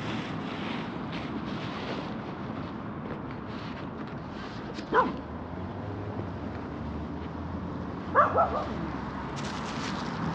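Dog barking: one short bark about halfway through, then two or three quick barks near the end, over steady background noise.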